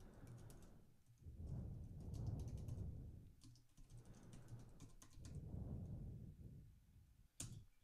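Faint typing on a computer keyboard: a run of quick, soft keystrokes, with a sharper key click near the end. Two stretches of soft low rumble sit under the typing.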